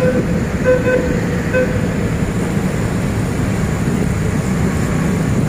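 Steady traffic noise of a busy street crowded with motorbikes and cars, heard from a moving vehicle, with a few short beeps in the first second and a half.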